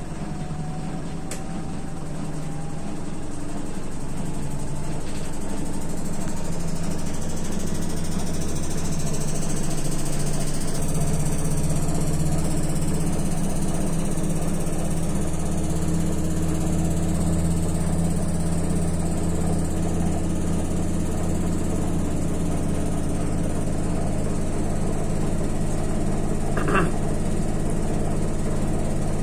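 Whirlpool washing machine on its spin cycle, set to 1200 rpm. The drum speeds up with a rising whine over about ten seconds, then spins steadily at high speed. There is one brief click near the end.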